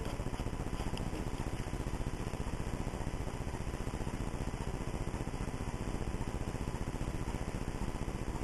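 Steady low rumble with hiss and a faint steady hum: the room tone of an empty hospital corridor at night, picked up by a camcorder's microphone.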